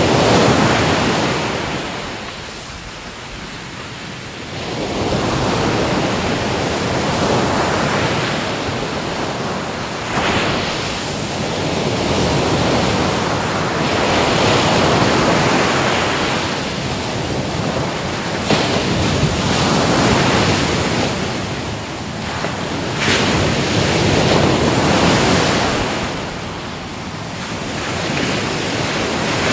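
Ocean surf: waves breaking and washing in, the rush swelling and falling back every few seconds.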